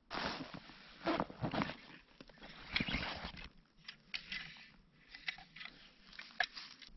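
Crinkly rustling and crunching as a backpack is handled on dry pine needles, followed by a run of light clicks and ticks as a long blade tool is drawn out of the pack and handled.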